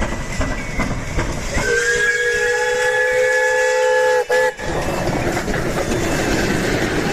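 Steam locomotive chuffing and hissing, with one long whistle blast starting about one and a half seconds in, then a short toot.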